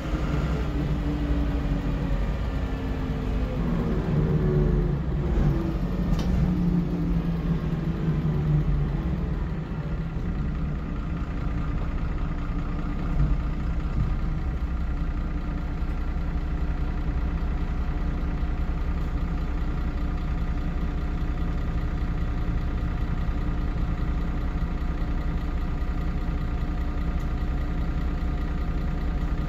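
MAN 18.240 single-deck bus's six-cylinder diesel engine heard from inside the saloon. Its note shifts and falls as the bus slows over the first several seconds, then it idles steadily with the bus at a standstill.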